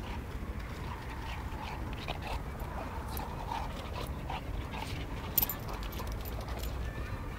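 Shar pei puppy and a second puppy play-fighting, with short, faint whines now and then. A sharp click comes about five seconds in, over a steady low rumble on the microphone.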